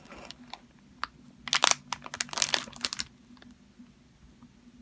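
Clear cellophane wrapping crinkling in short bursts as it is handled, loudest from about one and a half to three seconds in.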